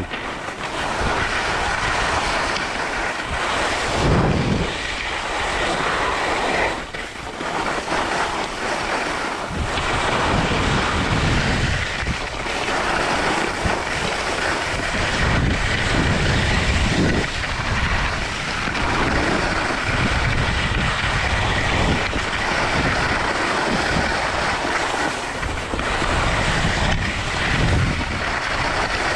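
Wind rushing and buffeting over the microphone during a downhill ski run, with the steady hiss and scrape of skis sliding and turning on packed snow. Low gusts swell and fade every few seconds.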